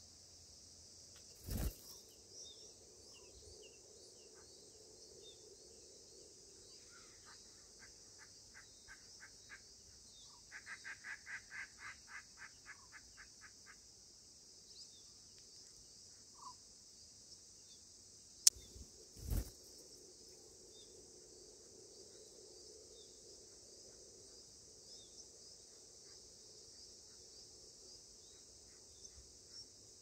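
Steady high insect drone, with a quick run of about twenty bird chirps about a quarter of the way in that get faster as they go. Two dull thumps, about two seconds in and about two-thirds through, and a single sharp click just before the second thump.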